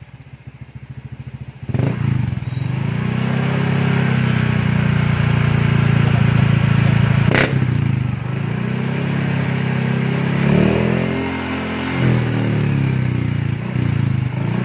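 Honda ADV scooter's single-cylinder engine revved through a custom slip-on exhaust made from a Honda CB150 muffler. After a short idle it rises sharply and is held at high revs for about six seconds, then drops back and is given two shorter blips. A single sharp click sounds midway through the held rev.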